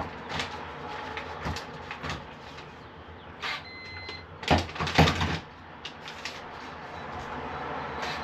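Handling of a Weiser SmartCode keypad deadbolt during programming: scattered clicks and knocks, a short electronic beep about four seconds in, then a louder clunking and rattling of the lock and door hardware about a second later.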